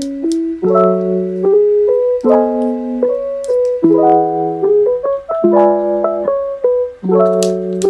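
Background music: a piano playing a slow run of sustained chords, changing about every second or so.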